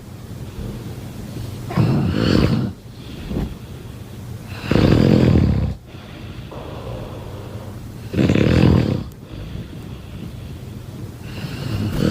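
A domestic cat snoring in its sleep: four snores about three seconds apart, with quieter breathing between them.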